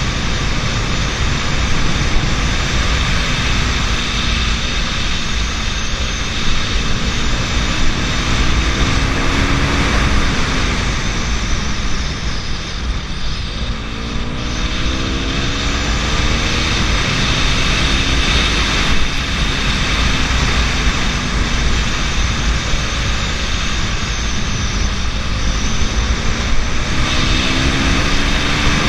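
KTM RC 200's single-cylinder engine under way, its revs climbing and dropping several times with throttle and gear changes, under a heavy rush of wind noise.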